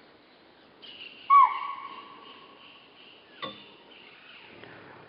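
Chital (spotted deer) giving a single loud alarm call about a second and a half in: a high whistle-like bark that dips briefly at its start, then holds steady for about a second while fading. A sharp click follows about halfway through.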